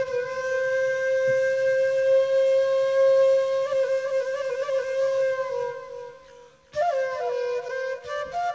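Solo wind instrument holding one long note with small ornaments, fading out about six seconds in, then beginning a new phrase of moving notes near the end.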